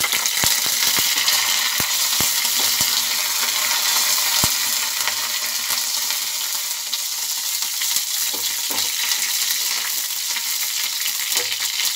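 Curry leaves, dried red chillies and mustard seeds sizzling in hot oil in a small tempering pan on a gas flame, a steady high hiss. Scattered sharp pops and crackles come in the first few seconds, then thin out.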